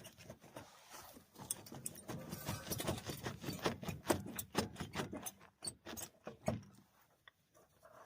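Metal tools and parts clinking and clattering in quick, irregular clicks during work on a car's front wheel hub bearing.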